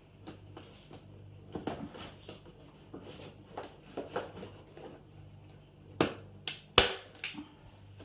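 Faint rustling and handling of the trough liner, then a hand staple gun clacking four times in quick succession near the end, the third the loudest.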